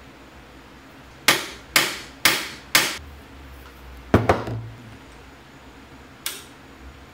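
Hammer driving a Torx bit into a stripped, drilled-through Allen-head bolt on a motorcycle steering stabilizer, so the bit bites enough to undo the bolt: four sharp metal blows about two a second, each with a short ring, then a quick double blow. A single lighter knock follows near the end.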